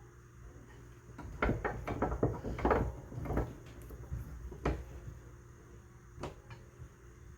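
Objects being handled: a cluster of clattering knocks and clicks about a second in, then two single sharp knocks later on.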